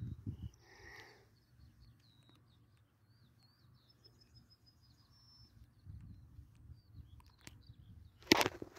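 Faint small bird chirping and giving a short high trill over a low steady rumble out in an open field. A sharp knock and handling noise come near the end.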